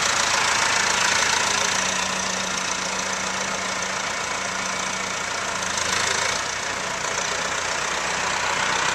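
Farm tractor engine running steadily at idle.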